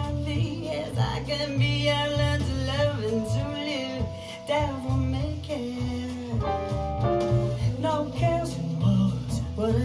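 A jazz recording playing back through a 1939 Makrophon full-range loudspeaker with a Siemens tweeter, picked up by a phone microphone in the room. This stretch is a passage with no sung lyrics, melody over a steady bass line.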